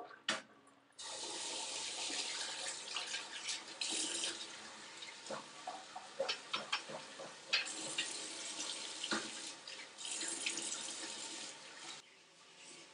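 Shower water running, starting abruptly about a second in and cutting off about eleven seconds later, with scattered splashes and ticks in the spray.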